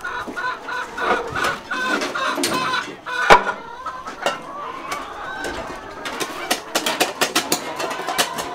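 Chickens clucking in a quick run of short, repeated calls, about three a second. About three seconds in comes a single sharp knock, and near the end a rapid series of clicks and taps.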